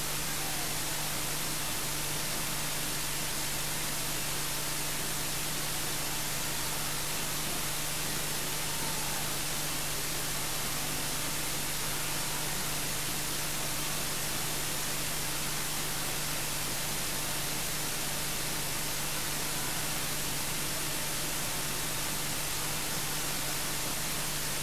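Steady electronic hiss from the recording chain, with a faint steady hum beneath it and nothing else audible.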